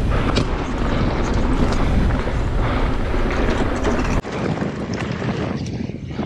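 Mountain bike ridden fast down a rough trail: wind rushing over the microphone, with heavy rumble and many short clatters as the bike runs over bumps. The low rumble drops away suddenly about four seconds in.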